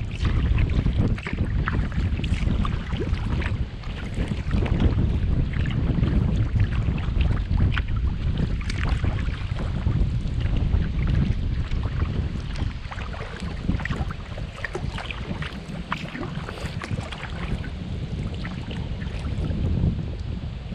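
Wind buffeting the microphone on a kayak, with water splashing and dripping from the paddle in many short ticks; the wind noise eases a little in the second half.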